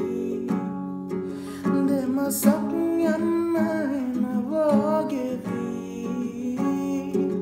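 A man singing a Sinhala song while playing an acoustic guitar, his voice gliding over steady guitar notes.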